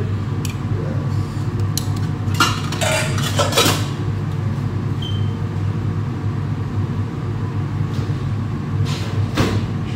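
Steady low drone of commercial kitchen ventilation, the extractor hood fan, with a few short clatters and rustles of food preparation between about two and a half and four seconds in and again near the end.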